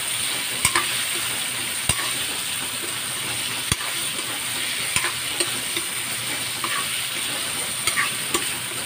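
Diced pork sautéing with tomato, garlic and onion in an aluminium wok, with a steady sizzle. A metal spatula stirs through it, scraping and knocking against the pan in irregular clicks.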